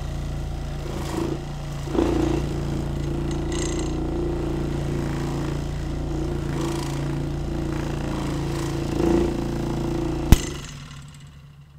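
Conair electric shoe shiner's motor running with a steady hum, its red buffer spinning against the wax-layered toe of a leather shoe, with brief rubbing swells as the shoe is pressed on. About ten seconds in there is a sharp click, and the motor then winds down and fades.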